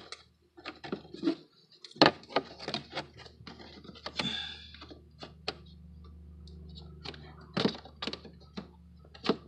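Plastic cabin air filter cover of a 2009 Hyundai Santa Fe being pushed back into its housing behind the glove box: a string of plastic clicks and knocks, the loudest about two seconds in, over a low steady hum.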